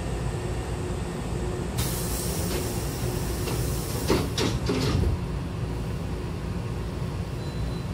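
Hankyu train's double sliding passenger doors closing. A hiss starts about two seconds in, then a short clatter and a thump as the two door leaves meet about five seconds in, over the steady hum of the standing train.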